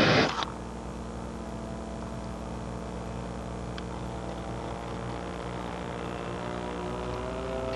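A flamethrower blast on a Traxxas E-Maxx R/C truck rushes out and cuts off about half a second in. Then a steady hum of several pitched tones carries on, a few of them rising slightly near the end.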